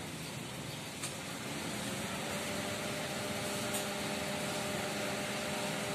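Steady background hiss, joined about two seconds in by the steady hum of a running motor, likely a nearby vehicle engine idling.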